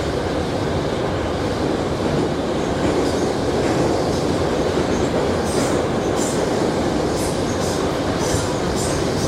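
81-717/714 metro train running between stations: a steady rumble of wheels and traction motors, with short sharp rattles of the wheels on the track recurring through the second half.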